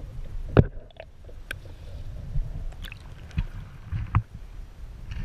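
Muffled, low water sloshing heard through a waterproof action-camera housing dipped under the surface beside a kayak, broken by several sharp knocks, the loudest about half a second in.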